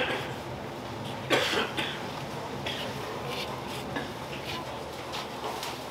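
Steady market background noise, with one loud, short cough about a second and a half in, followed by a few light clicks and taps.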